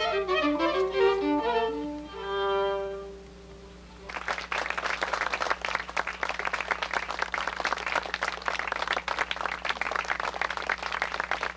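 Two violins playing a duet, closing on a long held note about two seconds in that fades away. From about four seconds in, an audience applauds steadily.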